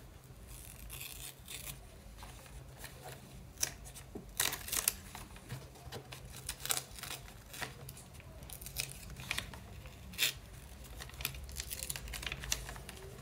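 Sticky tape peeled off a paper flap and the paper lifted and folded back: a run of short crackling rips and paper rustles, with a few sharper ones around the middle and again later.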